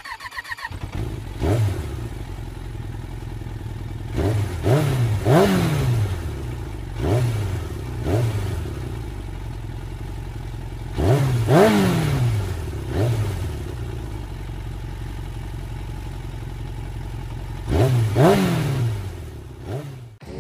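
A motorcycle engine idling, with repeated quick throttle blips in three clusters, each rev climbing sharply and dropping back to idle.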